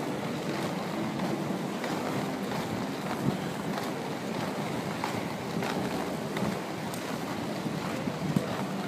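Steady rushing noise of wind over the microphone mixed with the rolling of inline skate wheels on asphalt, with a couple of brief sharp clicks.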